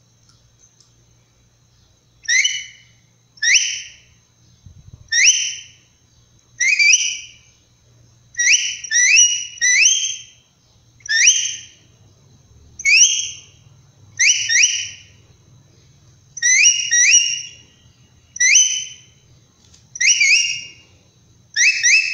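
Homemade bottle-cap capybara call blown to imitate a female capybara searching for her young. About fifteen short, high, rising whistled chirps, some in quick pairs, begin about two seconds in.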